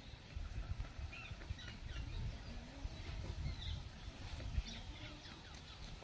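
Small birds chirping faintly and irregularly in the background, over low, uneven thumps and rumble.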